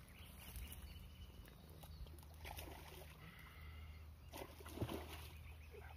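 Faint water splashing from a hooked pike thrashing near the surface as it is played to the landing net, in a few short bursts about halfway through and near the end, over a steady low rumble.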